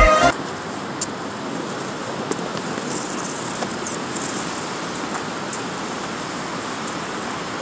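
Steady outdoor background noise, an even rush with no distinct source, after background music cuts off right at the start.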